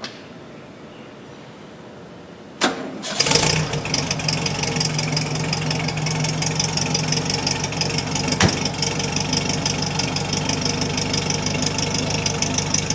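Air-cooled flat-four engine with a Vintage Speed Sebring exhaust being started: a brief crank about two and a half seconds in, then it catches and settles into a steady idle. A single sharp click partway through.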